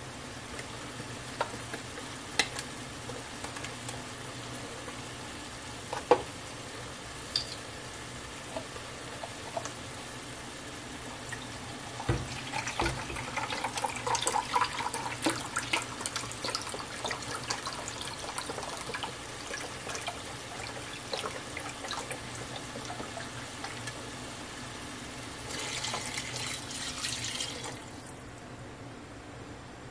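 Kitchen handling at the stove: scattered clicks and knocks of containers over a steady low background, with busier clattering around the middle. Near the end, vegetable broth is poured from a carton into a measuring cup for about two seconds.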